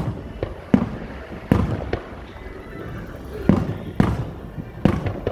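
Aerial fireworks bursting: about eight sharp booms at irregular intervals, each trailing off in a low rumbling echo.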